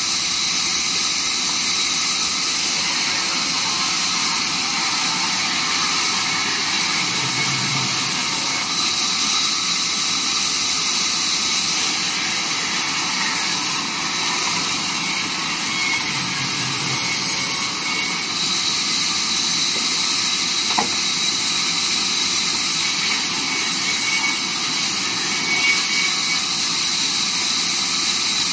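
Large vertical band saw running steadily as wooden boards are fed through it, the blade cutting timber with a continuous high hiss.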